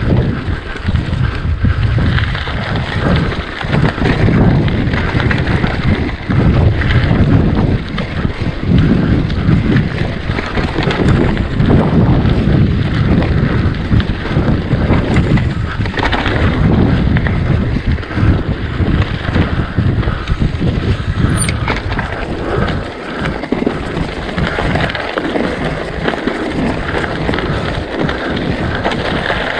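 Mountain bike ridden fast over rough single-track: wind buffeting the camera microphone over the constant rumble and clatter of tyres and frame on the trail.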